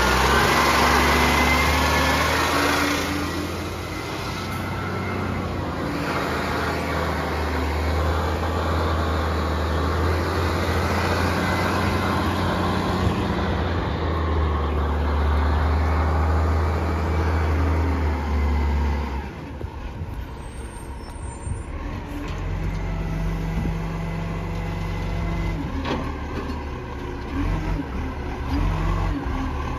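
Garbage truck's engine running with a steady low drone that drops away about two-thirds of the way through, then picks up again.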